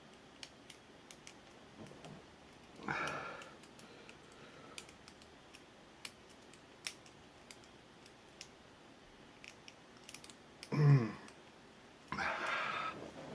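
Faint, irregular small metallic clicks of a lock pick and tension wrench working the pin stack of an ABUS 83AL/45 brass padlock, with pins clicking as they are lifted and set. Two short grunts break in, one about three seconds in and a louder one near eleven seconds, followed by a breathy sound near the end.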